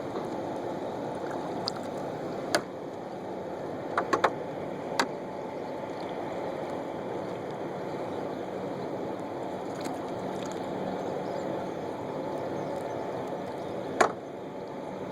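Canoe on the water with a few sharp knocks, likely the paddle striking the hull, the loudest near the end, over a steady low rumble.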